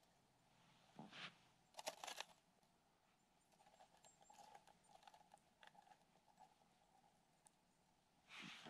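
Near silence broken by faint handling noises of a plastic ice-fishing tip-up being set over a hole: short scuffs and clicks about one and two seconds in, light ticking in the middle, and a rustle near the end.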